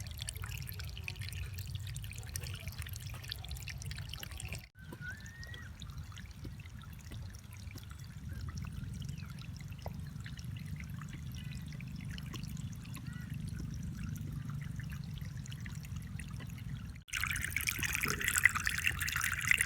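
Water trickling and pouring steadily in a small homemade waterfall. The sound drops out briefly twice; after the second break, near the end, the flow is louder and splashier.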